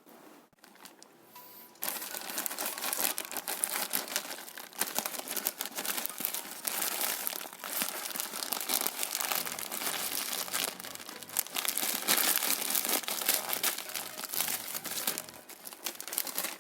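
Product packaging crinkling and tearing as it is unboxed by hand. It starts about two seconds in and goes on as a dense, irregular crackle.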